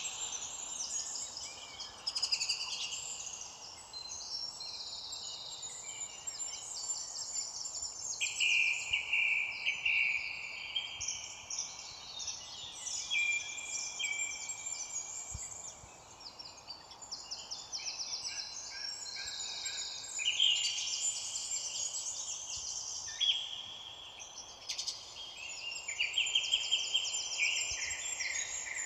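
Several songbirds singing at once, overlapping trills and quick runs of chirps, over a faint steady background hiss.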